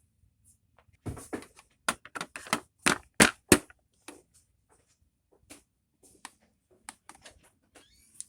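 Plastic dolls and dollhouse pieces being handled, giving a run of sharp clicks and taps: a dense, loud cluster in the first half, then scattered lighter taps.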